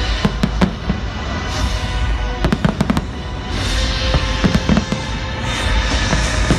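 Fireworks exploding in three quick clusters of sharp bangs, over a steady low rumble, with music playing underneath.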